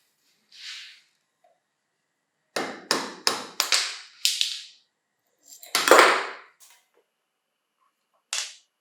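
Sharp clicks and knocks of small hard parts being handled: a quick run of about five clicks, a louder knock with a short rattle about six seconds in, and one more click near the end.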